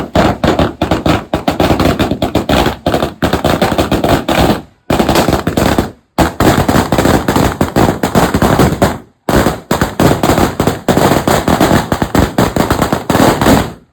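A string of firecrackers (a 100-sound wala) bursting in rapid, continuous bangs, several a second. The bursting breaks off into silence briefly about five, six and nine seconds in, then carries on.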